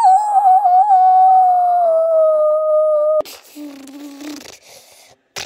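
A child's voice holds one long high note, humming or singing, that slowly drops in pitch and cuts off suddenly about three seconds in. After that there is only faint rustling from the phone being handled.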